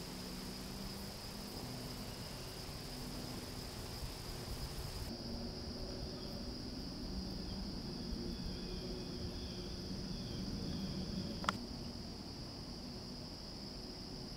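Steady high-pitched insect chorus in the woods, with a single sharp click about eleven seconds in.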